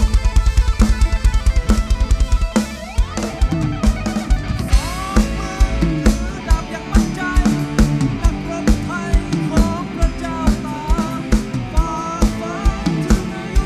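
Live rock band with drum kit and electric guitar. For the first couple of seconds the kick drum plays rapid, evenly spaced strokes. The band then settles into a steady beat, with the electric guitar playing a melodic lead full of bent, sliding notes over the bass.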